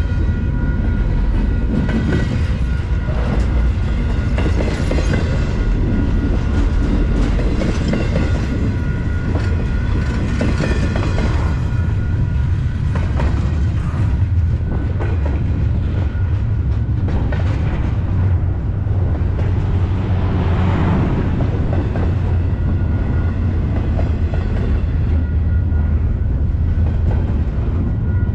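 Double-stack intermodal container well cars of a freight train rolling steadily past at close range. The wheels on the rails make a continuous low rumble, with occasional knocks and a faint steady whine above it.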